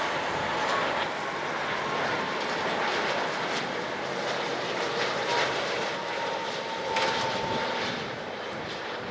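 Airbus A330-200 twin-engine jetliner on final approach with its landing gear down: a steady jet engine rumble with a faint high whine running through it.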